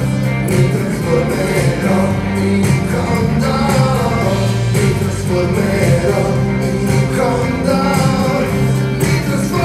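Live rock band playing an instrumental passage, with electric and acoustic guitars, keyboards and drums keeping a steady beat.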